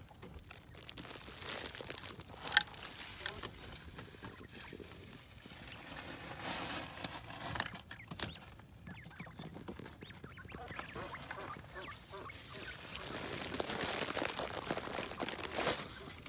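Japanese quail calling softly in a cage, over rustling and scratching in dry leaf litter that comes and goes, with a sharp click a few seconds in.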